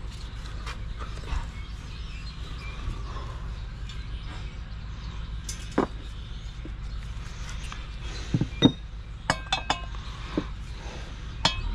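Scattered light metallic clicks and knocks as tools and bearing parts are handled at a motorcycle wheel hub, with a cluster of short ringing clinks near the end, over a steady low rumble.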